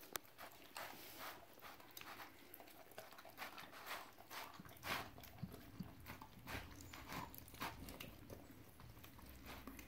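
Husky chewing and crunching through a rotisserie chicken carcass: faint, irregular crunches and snaps of meat and bone.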